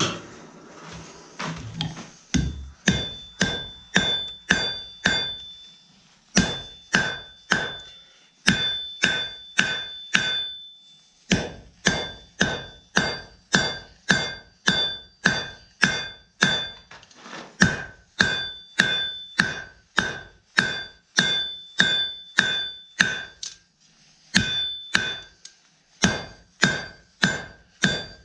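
Hand hammer striking hot steel on an anvil, drawing out a taper on a cut half of a horseshoe. The blows come steadily at about two a second, in five runs with brief pauses between them, and the anvil rings at several clear pitches after each blow.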